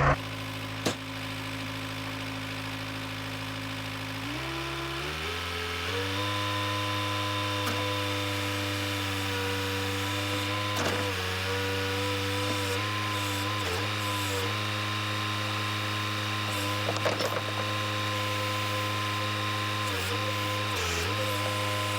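Backhoe's diesel engine running steadily. About four to five seconds in it is throttled up in two quick steps, then holds at the higher engine speed, its pitch sagging briefly a few times.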